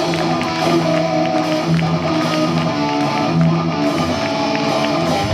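Live rock band playing, led by guitar, with sustained chords and a steady beat.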